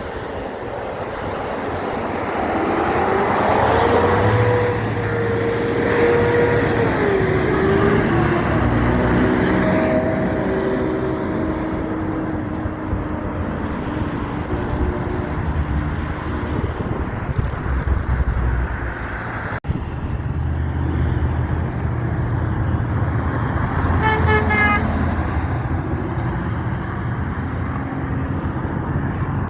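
Heavy trucks driving past with loud diesel engine noise, and a short horn blast about 24 seconds in.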